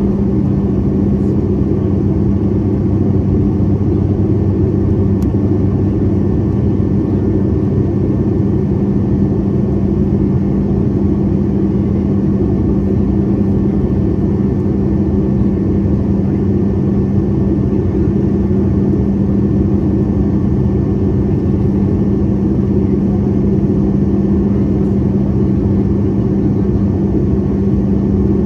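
Airliner cabin noise in flight: a steady, unchanging rumble with a constant droning hum.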